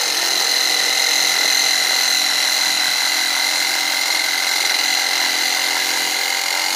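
Abeden HY-7020 cordless reciprocating saw starting abruptly and running at a steady speed, its blade cutting into brushwood branches: a steady high whine over a dense buzzing rattle.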